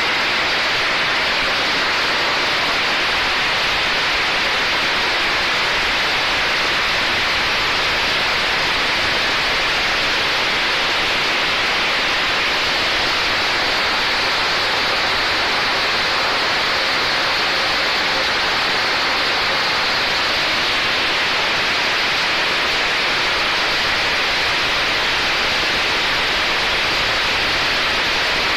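PET bottle label remover machine running wet: a steady, loud rush of spraying water and churning bottles, even throughout, with no distinct knocks or rhythm.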